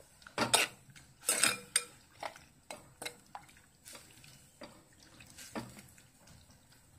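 A spoon knocking and scraping against the sides of an earthenware clay pot while stirring curry, a run of irregular clinks that are loudest in the first two seconds, then thin out and grow quieter.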